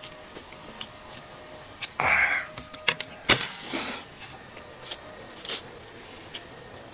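Noodles being slurped up from a bowl: a few short, noisy sucking pulls, with small clicks in between.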